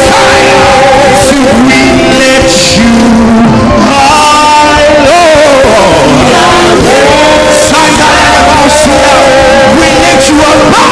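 Live gospel worship music: a band plays on with sustained chords and cymbal hits while singers hold long notes and slide between pitches, between lines of the chorus.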